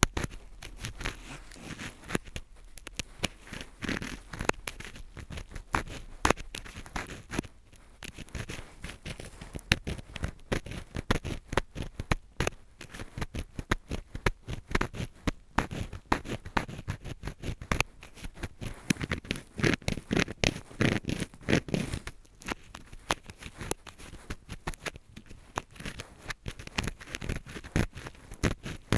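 Close-up ear-pick scratching with a drill screw: a dense run of small scratchy clicks and scrapes, with brief pauses between strokes.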